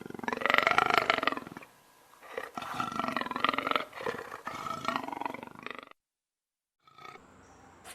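A large animal giving two loud, rough, drawn-out calls, the second one longer, then cutting off suddenly.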